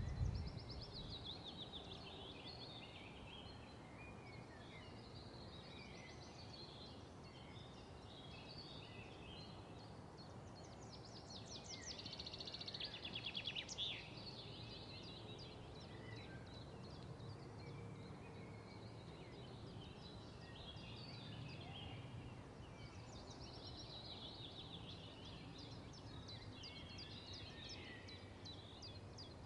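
Faint background birdsong: several small birds chirping and trilling over a low, steady background rumble, the chirping busiest a little before the middle.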